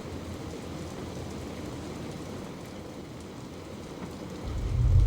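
Steady rain sound effect, an even hiss of falling rain. About four and a half seconds in, a loud deep rumble sets in over it.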